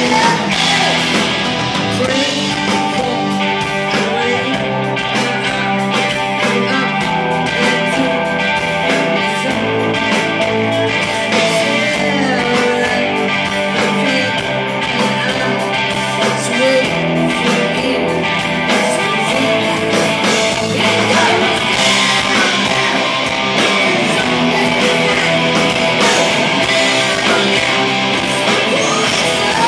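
Live rock band playing electric guitars, bass and drums, with a woman singing lead vocals into a microphone.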